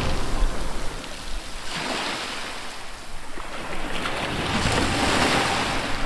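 Sea water washing and splashing against a small boat's hull, with wind on the microphone; the wash swells twice.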